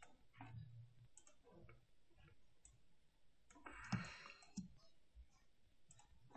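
Faint computer mouse clicks, scattered and irregular, as anchor points are clicked and dragged, with a louder brief rustle about four seconds in.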